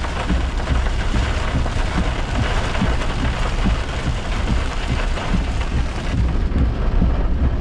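Heavy rain pelting the car's windshield and roof, heard from inside the cabin as a dense steady hiss of many small drop hits, over the low rumble of the car driving on the wet road.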